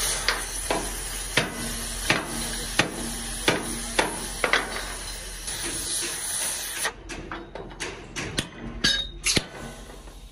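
Sledgehammer blows on a steel truck chassis rail, about three every two seconds, over the steady hiss of an oxy-fuel torch heating the metal. About seven seconds in the hiss stops and lighter metal clinks follow.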